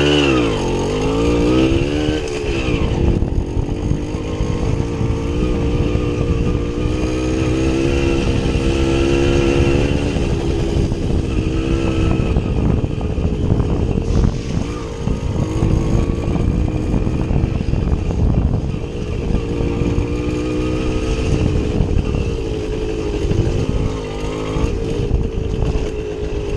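Small two-stroke motorcycle engine riding off-road, revs rising and falling again and again as the throttle is worked, with a sharp drop and pick-up in the first couple of seconds, over a constant low rumble.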